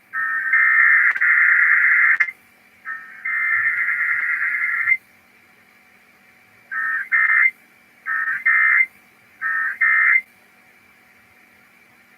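Emergency Alert System SAME digital data bursts, a screechy two-tone warble. Two long header bursts come about a second apart, then a few seconds later three short end-of-message bursts, marking the close of a required weekly test.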